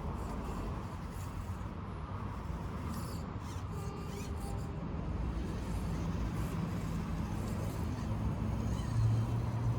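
Axial SCX24 1/24-scale rock crawler's small electric motor and gear drive whirring as the truck crawls over terrain, over a steady low background noise.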